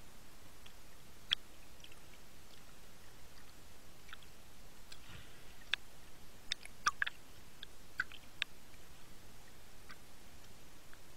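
Underwater ambience heard through a submerged camera: a steady hiss with about a dozen irregular sharp clicks and ticks, most of them around the middle.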